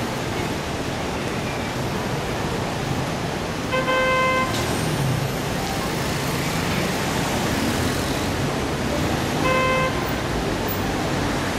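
Dense city street traffic: the steady noise of cars, taxis and buses idling and moving through an intersection. A car horn toots briefly twice, about four seconds in and again near the end.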